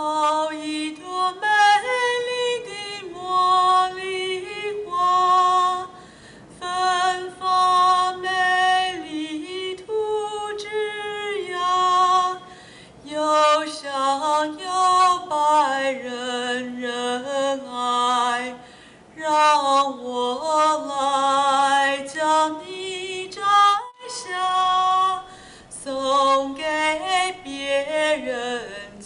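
A woman singing a slow melody in long held notes with vibrato, pausing briefly between phrases.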